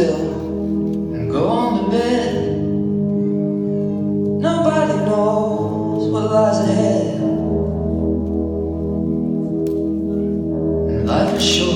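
Recorded song played back over a hall's sound system: a singer's phrases come and go over steady held chords.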